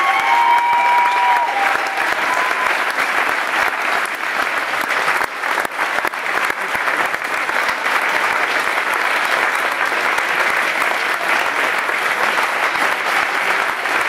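A crowd applauding steadily, many hands clapping together without a break.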